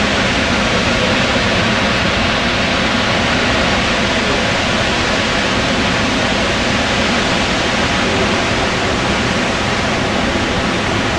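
Lower Falls of the Yellowstone River: a loud, steady rush of water pouring over the lip of the falls, heard from right beside the brink.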